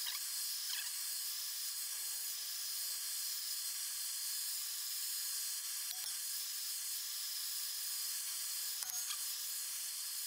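Hand-held propane torch flame hissing steadily against a steel plate, with a couple of soft knocks, about six and nine seconds in, from a mallet bending the hot plate over a round bar.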